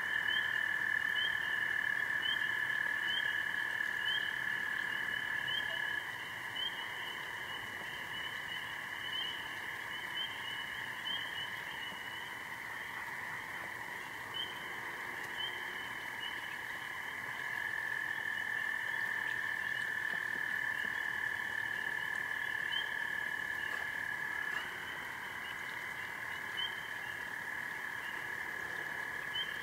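Chorus of frogs calling in a swamp at night: short rising high peeps repeating over and over, above a long steady trill that breaks off about six seconds in and starts again around eighteen seconds, with a fainter lower trill underneath.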